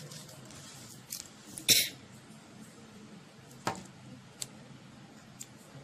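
Paper cut-outs being handled and pressed onto a card: a few short taps and rustles of paper, the loudest about two seconds in and another a little past the middle, over a low steady hum.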